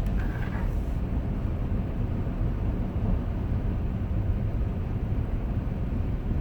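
Steady low road and drivetrain rumble of a 2010 Acura MDX being driven, with no sudden events.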